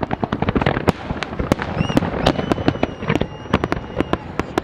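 Fireworks display: a dense, irregular barrage of bangs and crackling shell bursts, with a few high whistling tones over them.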